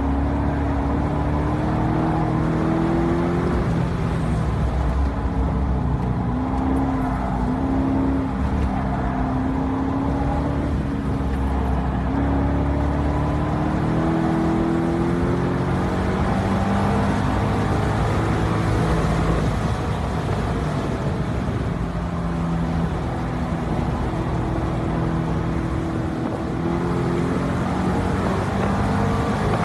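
2012 Corvette Grand Sport's 6.2-litre LS3 V8 being driven hard on a track lap. The engine note climbs through the revs, drops back and climbs again over and over as the car accelerates, shifts and brakes for corners.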